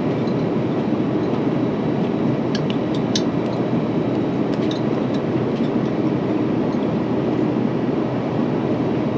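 Steady cabin noise of an Airbus A350 in flight: the even rush of airflow and engines heard inside the cabin. A few light clinks of cutlery on dishes about three and five seconds in.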